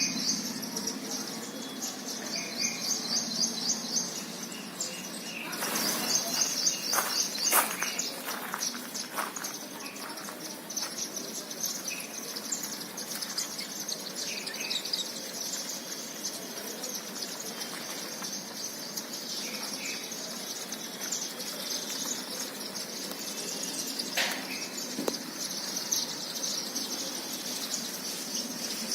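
A large flock of Indian silverbills twittering continuously with many overlapping high chips at the feeders. About six seconds in, a louder flurry of wingbeats and calls.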